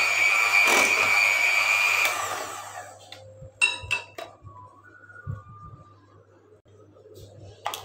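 Electric hand mixer running steadily with a high whine as its beaters churn cake batter; it is switched off about two seconds in and winds down. A few clicks and knocks follow, and one more click near the end.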